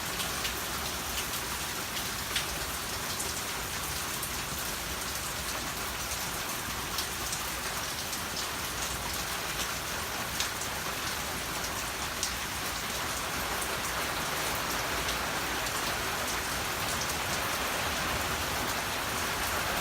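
Heavy rain falling in a summer thunderstorm: a steady hiss of rain with individual drops ticking sharply now and then. The rain grows slightly heavier over the last few seconds.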